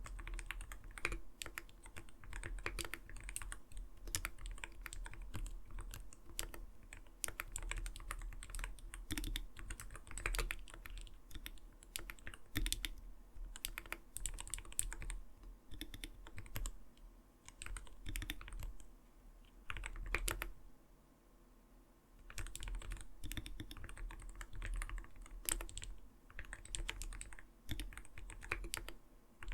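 Fast, continuous typing on an Arbiter Studio Polar 65 gaming keyboard: a dense, irregular run of soft, not-too-light 'kotokoto' keystrokes. The typing stops for about two seconds roughly two-thirds of the way through, then carries on.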